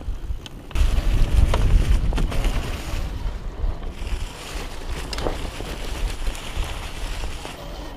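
Wind buffeting an action camera's microphone while riding a fat e-bike on a snowy trail, a heavy low rumble that gets louder about a second in. A few short knocks from the bike going over bumps are mixed in.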